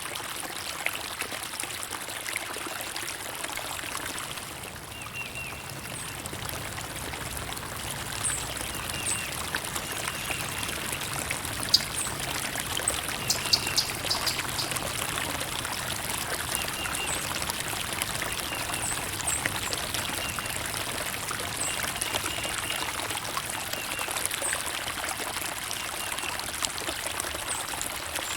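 Running water trickling and pouring steadily, with short, high bird chirps repeating now and then over it and a brief flurry of sharper calls about halfway through.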